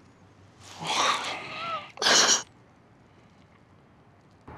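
A woman crying: a shaky, whimpering breath about a second in, then a sharp gasping sob about two seconds in.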